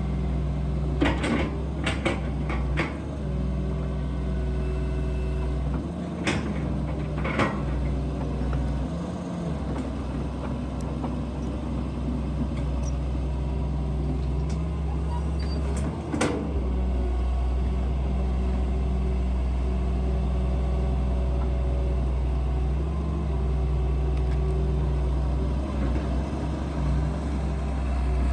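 Excavator's diesel engine running steadily under load, its pitch shifting slightly now and then. Several sharp knocks and clanks cut through it, a cluster in the first few seconds and another about 16 seconds in.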